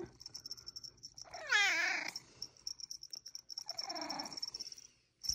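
A drowsy, half-asleep Ragdoll cat meows once, the call falling in pitch, about a second and a half in, then makes a softer, rougher murmur about three and a half seconds in.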